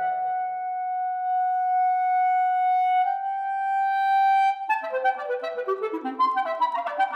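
Solo clarinet holding one long, high note for about four and a half seconds, edging slightly sharp partway through. It then breaks into fast, flurried running passages of short notes.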